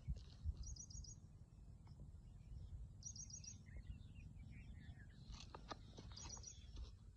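Small birds chirping: quick runs of four or five high chirps, repeated about every two and a half seconds, over a faint steady low rumble.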